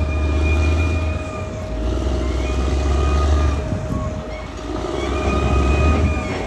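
Caterpillar D6R XL bulldozer working, its diesel engine running with a deep drone that swells and eases in waves over a steady whine. The level dips briefly about four seconds in.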